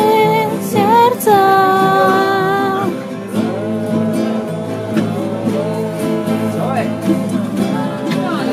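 A band playing live with guitar, a voice singing long held notes over it in the first three seconds, then the accompaniment carrying on.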